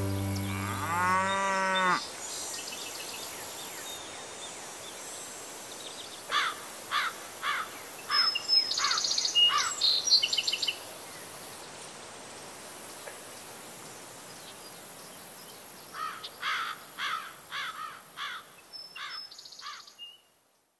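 A cow moos once in the first two seconds. After that comes rural outdoor ambience: a steady hiss, with birds chirping in two bouts of quick falling notes.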